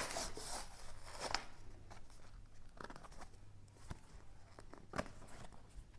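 Card-and-paper microSD card packaging being peeled and torn open by hand: a tearing rustle at first, then a few sharp snaps as the card is flexed apart.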